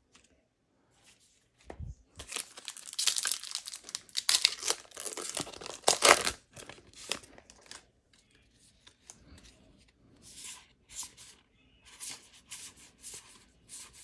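A foil booster-pack wrapper being torn open and crinkled, a run of tearing and crackling that starts about two seconds in and is loudest about six seconds in. After that, softer short rustles and flicks of trading cards being handled.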